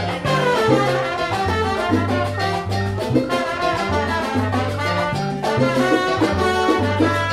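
Salsa band playing an instrumental passage, the horn section prominent over the bass line and percussion.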